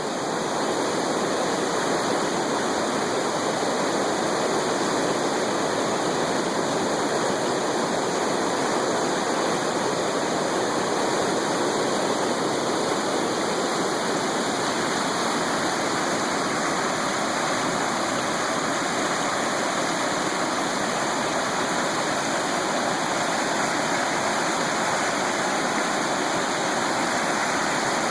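Fast-flowing floodwater runoff rushing steadily, a continuous even wash of moving water.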